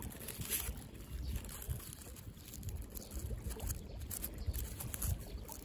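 Uneven wind rumble on the microphone over gently lapping water, with faint scattered crackles of handling close to the microphone.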